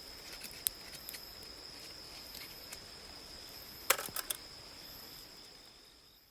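Crickets or similar night insects trilling steadily in a high, even tone over a faint background hiss. A few sharp snaps come through, the loudest cluster about four seconds in, and the whole scene fades out near the end.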